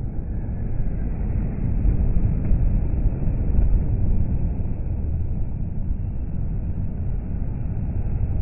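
Heavy motorway traffic passing close by: lorries' diesel engines and tyres making a steady low rumble. It swells near the end as a Renault T-series tractor unit with a curtainsider trailer draws level.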